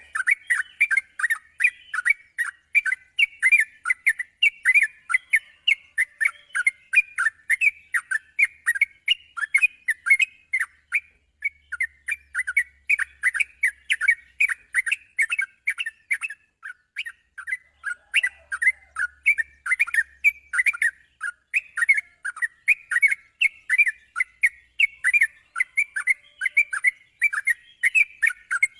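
Yellow-vented bulbul (trucukan) song: a dense, unbroken run of rapid chirping notes, several a second, of the kind played to train the bird's nerve for song contests.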